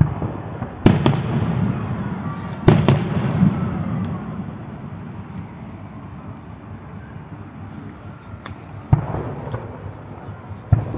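Fireworks display: aerial shells bursting with sharp bangs, the loudest about one and three seconds in, each followed by a long rolling rumble. More bangs come near the end.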